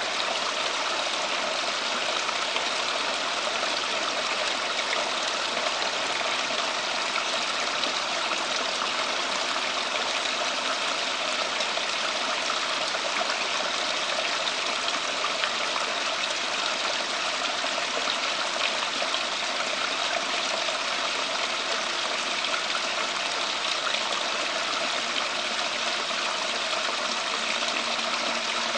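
Steady running water from a garden water feature, an even trickling rush that does not change.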